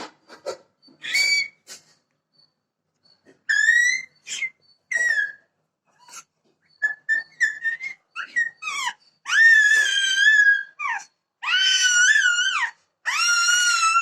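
A baby's high-pitched squeals: short squeaks at first, then longer wavering squeals of about a second each that grow louder in the second half.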